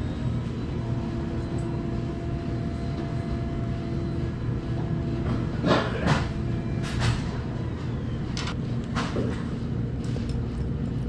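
Steady low hum of a fast-food restaurant's background machinery, with a few sharp clatters about six seconds in and again about nine seconds in.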